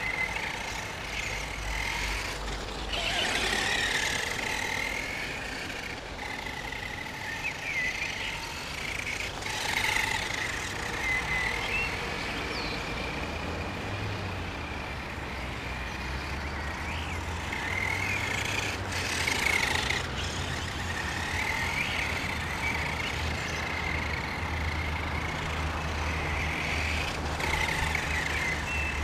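Electric brushed motor and gears of a Helion Dominus 1/10 short-course RC truck whining as it is driven around, the pitch rising and falling with the throttle and louder in a few short surges. A steady low rumble runs underneath.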